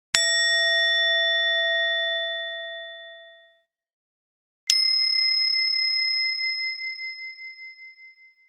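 Two separate 'chiin' strikes on a small Buddhist rin bowl-bell, each ringing out. The first rings and fades over about three and a half seconds. The second is higher and comes about four and a half seconds in, ringing on with a wavering beat as it slowly fades.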